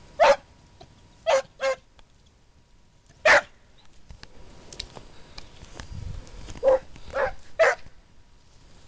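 Hunting hound barking: seven short, sharp barks, a few close pairs spread irregularly across a few seconds.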